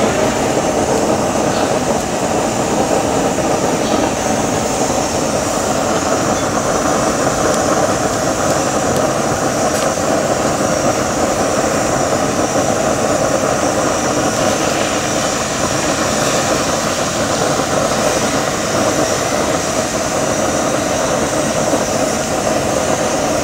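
Steaks sizzling in bubbling fat on a ridged cast-iron grill pan over a gas flame: a loud, steady hiss.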